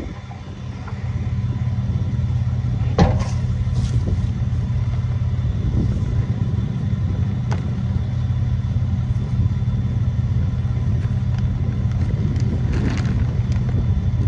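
A steady low engine rumble. A few short knocks and rustles come about three seconds in and again near the end, as old tyres are set against the plastic grain bag.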